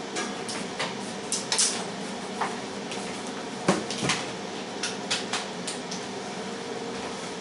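Scattered clicks and knocks of household objects being handled, like dishes or a cupboard door, over a steady hum from the running air fryer's fan. The loudest knocks come about a second and a half in and again about halfway through.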